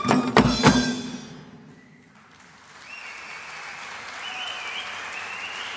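Percussion music ends with a few last drum strikes in the first second. After a short lull an audience applauds, with a high held tone that rises in steps running over the applause.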